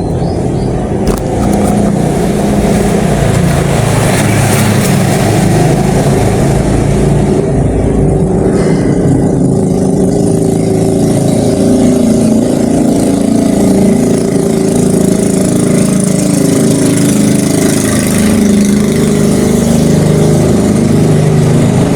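A motor vehicle's engine running steadily and loud, close by.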